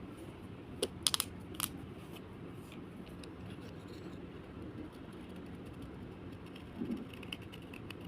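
A few sharp clicks of brittle slate pieces, bunched about a second in and again faintly near the end, over a steady low rumble.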